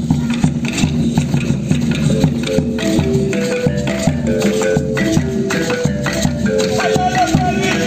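Live Esmeraldas marimba music: a wooden marimba plays a repeating melody of short notes over a steady bombo drum beat and the continuous shake of guasá tube rattles.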